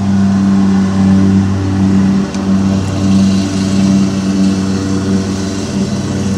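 A steady low mechanical hum made of several even tones, holding level throughout, like a motor or fan running in the workshop.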